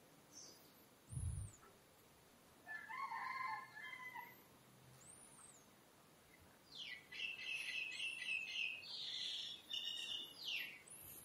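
Faint rooster crowing about three seconds in, with a longer run of higher bird calls in the last four seconds. Short, high chirps from small birds come every few seconds, and a single dull thump sounds about a second in.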